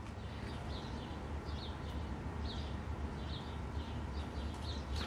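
A bird chirping over and over, short falling chirps every half second to a second, over a steady low hum.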